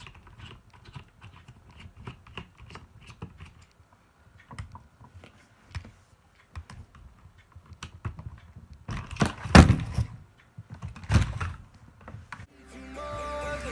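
Irregular clicking, tapping and small rattles of an old toy robot being handled and taken apart by hand, with a few louder clattering knocks about nine to eleven seconds in. Music starts near the end.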